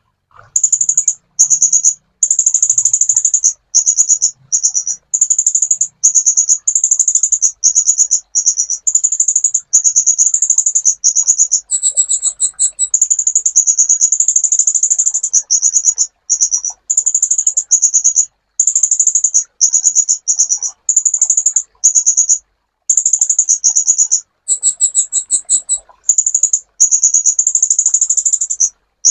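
A sunbird, the 'kolibri ninja' of Indonesian bird-keepers, singing a loud, very high-pitched song of rapid trilled phrases in quick succession with short gaps. Twice a higher, clipped phrase breaks in.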